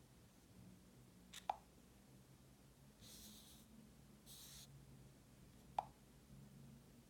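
Faint handling sounds during a phone unboxing: two sharp clicks about four seconds apart, each with a quick falling pitch, and two brief rustles between them, over a low steady hum.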